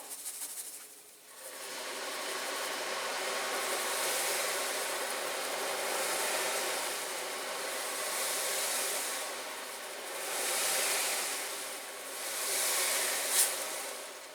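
Caustic soda bath fizzing and hissing steadily around a diecast model car body as it strips it, swelling and easing in slow waves. There is a single sharp click near the end.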